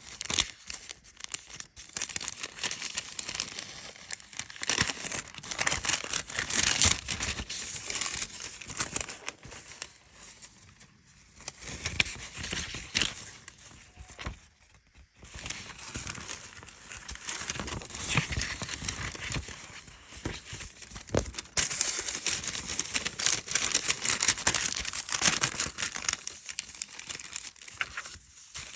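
Paper packaging being handled and unwrapped, crinkling and tearing in irregular spells, with short lulls about eleven and fifteen seconds in.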